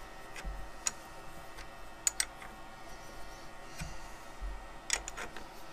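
Light metallic clicks and clinks from a lantern-style tool post on a metal lathe being adjusted and set by hand: a few sharp clicks, two of them in quick pairs, with soft handling bumps between, while the lathe stands still.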